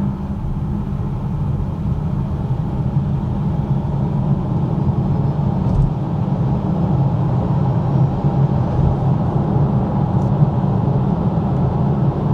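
Polestar 2 Single Motor electric car accelerating hard from a standstill on winter tyres: a steady low road and tyre rumble that slowly builds as speed rises.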